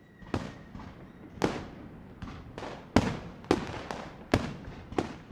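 Fireworks going off: a series of about nine sharp bangs at irregular intervals, one or two a second, each with a short fading echo.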